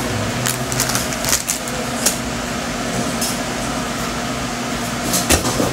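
Steady hiss of room noise with a few soft clicks and rustles scattered through it.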